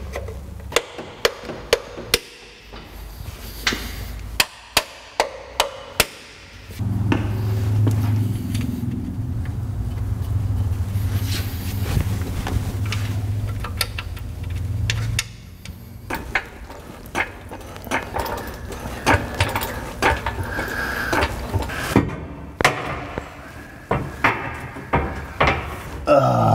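Metal bolts and tools clanking as engine mount bolts are fitted: a quick run of sharp knocks and clicks, then a steady low hum for several seconds in the middle, then more scattered clicks and taps.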